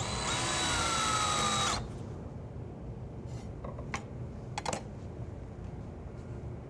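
Cordless drill-driver driving a screw through a metal drawer slide into the cabinet side: the motor whines for a little under two seconds, its pitch rising slightly, then stops abruptly. A few light clicks follow as tools are handled.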